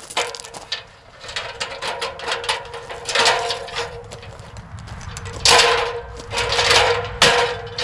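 Aluminium extension ladder being moved and set against a wooden scaffold: irregular metal clanks, knocks and scraping, busiest about three seconds in and again from five and a half seconds on. A steady hum runs underneath.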